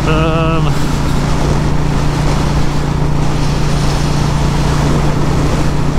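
Royal Enfield Meteor 350's single-cylinder engine running steadily at cruising speed, heard through a helmet-mounted microphone under heavy wind noise. A brief wavering tone sounds in the first half-second.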